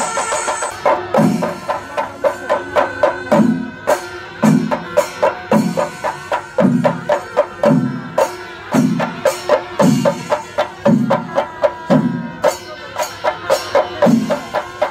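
Chenda melam: a group of Kerala chenda drums beaten with sticks, fast sharp strokes over a deep beat about once a second.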